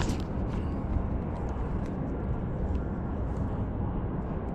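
Steady low rumbling outdoor background noise, with a few faint clicks in the first second.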